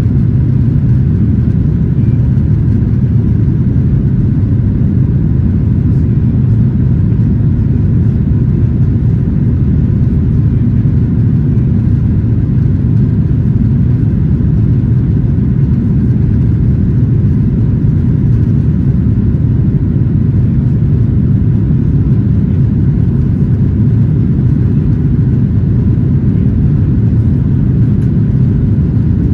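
The cabin of a Boeing 737-900ER in its climb after takeoff: the CFM56-7B engines and rushing air make a steady, loud, low roar, heard from a seat over the wing.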